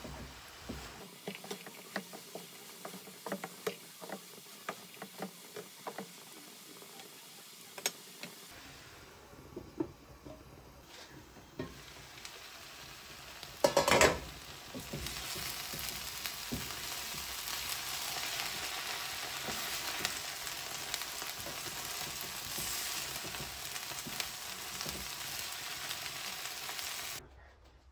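A wooden spoon stirring and scraping bean seeds and chopped greens in a frying pan, with scattered clicks of the spoon against the pan. About halfway through, after one loud knock, the pan sizzles steadily as the food fries.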